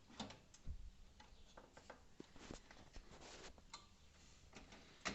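Faint, irregular clicks and light taps as a CPU cooler is being fitted and seated onto the processor, with a slightly sharper tap near the end.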